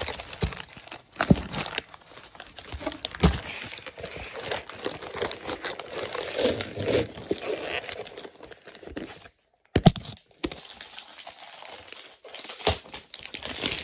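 Packaging being unwrapped by hand: dense crinkling and tearing with sharp crackles and a few knocks, broken by a brief dead silence a little past halfway before the crinkling resumes.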